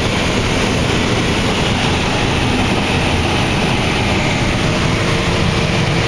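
Claas Lexion 595 combine running steadily under harvest load, heard from inside its cab. A few steady humming tones come in near the end.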